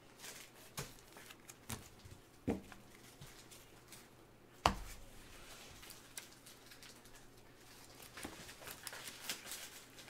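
Trading cards and plastic card holders being handled on a table: a few light clicks and taps, one sharper knock about four and a half seconds in, then soft shuffling and rustling.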